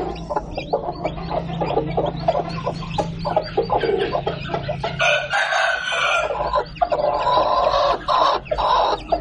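A hen clucking over her chicks while the chicks peep rapidly and high-pitched. From about halfway on, louder and longer chicken calls join in.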